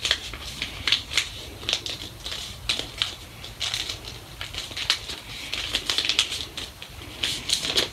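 A sheet of paper being folded and creased by hand into a paper airplane: irregular rustling and crinkling with many short crackles as the folds are pressed down.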